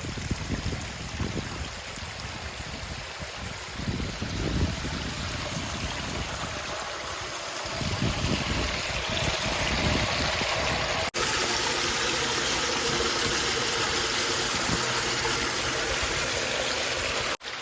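Water cascading down a pondless waterfall's creek in a steady rush. The sound breaks off for an instant about eleven seconds in and again near the end.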